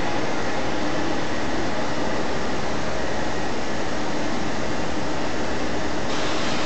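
Steady industrial plant noise from chemical-process machinery and ventilation: a continuous hiss and hum with a few faint steady tones. The hiss brightens a little near the end.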